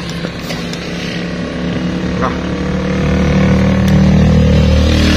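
A motor vehicle's engine running with a steady low hum, growing louder about three seconds in.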